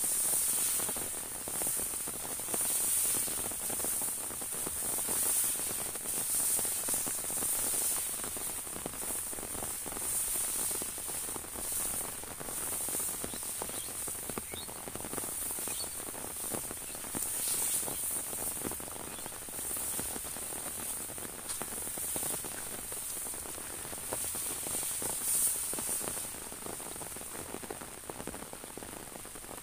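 Light rain pattering on an umbrella, with scattered drop ticks and a steady high hiss that swells and fades every second or two.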